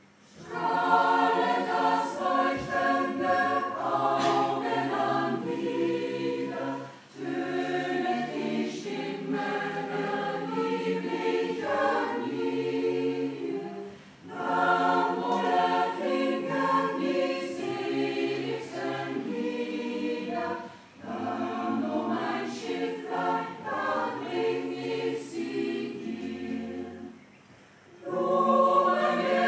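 Mixed choir singing in parts, starting about half a second in out of near quiet. The song moves in phrases of about six to seven seconds, each followed by a short break for breath.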